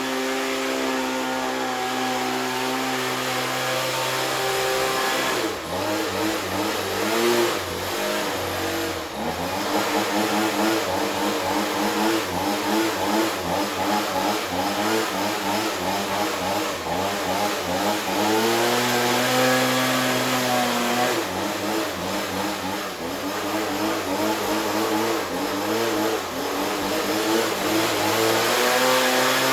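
Gas-powered Husqvarna leaf blower running, its engine held steady for a few seconds, then revved up and down again and again with the throttle, steadying briefly partway through before revving again.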